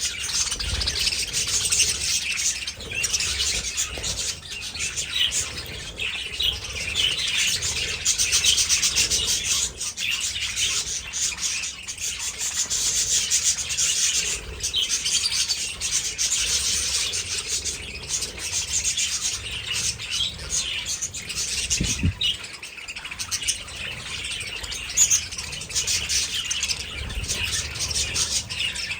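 A large flock of budgerigars chirping and chattering all at once, a dense, continuous mass of short high chirps.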